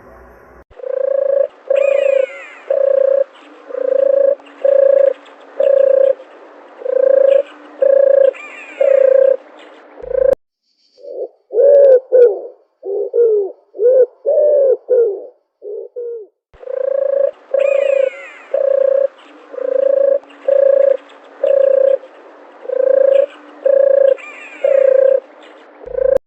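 A dove cooing a long series of evenly spaced, steady notes, about one a second. In the middle the run breaks into a stretch of shorter coos that rise and fall, and then the steady series starts again. A few faint chirps from another small bird sound above it.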